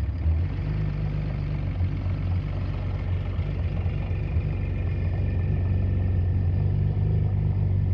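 1979 Honda CBX 1000Z's inline six-cylinder engine idling steadily, freshly started.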